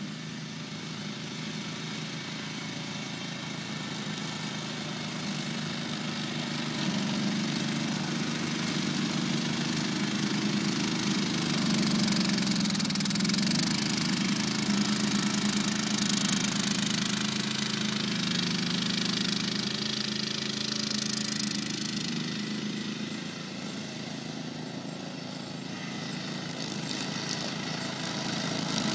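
Ride-on mower's 16 hp single-cylinder Briggs & Stratton Intek engine running steadily under load while the mower cuts thick grass. It grows louder about a quarter of the way in, eases off for a few seconds near the end, then rises again.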